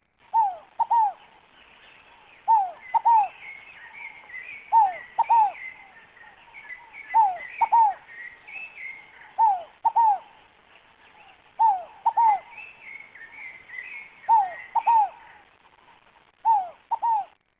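Scaled dove (rolinha fogo-apagou) calling: a repeated double coo, two quick downslurred notes, about every two seconds, eight times. Higher twittering from other small birds comes in over it, mostly in the first few seconds and again past the middle.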